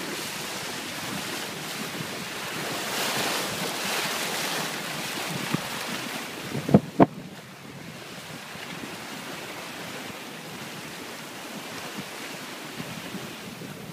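Sea rushing and breaking along the hull of a Contessa 32 yacht running downwind in about 20 knots of wind, with wind buffeting the microphone. There are two sharp knocks close together about seven seconds in.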